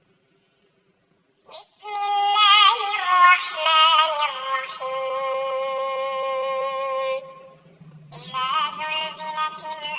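High, synthetic-sounding voice chanting Quran recitation in a melodic, wavering style, entering about one and a half seconds in. It holds a long note, breaks off for about a second, then resumes the chant.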